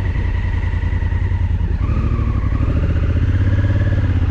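Motorcycle engine running under way, heard from a bike-mounted camera, its note changing and climbing a little about two seconds in.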